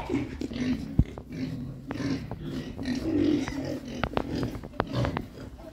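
Several piglets grunting and snuffling close up in short repeated bursts, with sharp clicks and taps throughout, the loudest about a second in.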